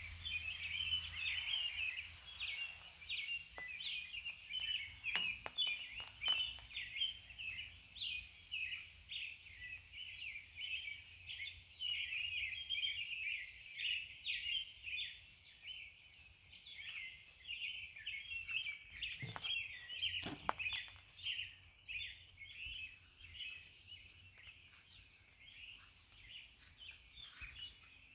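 Birds chirping without a break, a busy run of short high chirps. A few light knocks sound about five seconds in and again about twenty seconds in.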